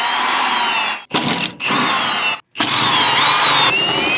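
Power drill running in four short bursts with a whining motor pitch that dips and rises, backing out 10 mm bolts.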